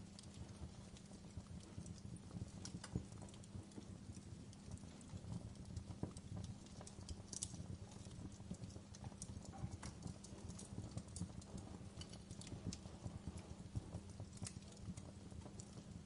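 Wood logs burning in an open fireplace: faint, irregular crackles and small pops of the burning wood over a low, steady rumble.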